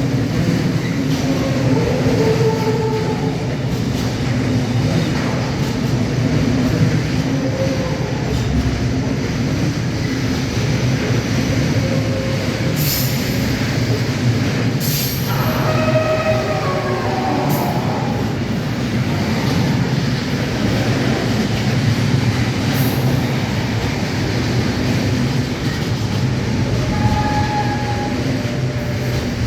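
Intermodal freight train rolling steadily through a station with a continuous rumble of wagons on the rails. Its wheels squeal intermittently, with a burst of higher squeals about halfway through.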